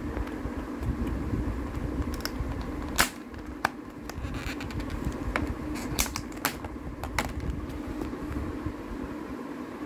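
Clear plastic lid of a takeaway food tray being handled and pried off by hand: several sharp plastic clicks and snaps, the loudest about three, six and seven seconds in, over a steady background hum.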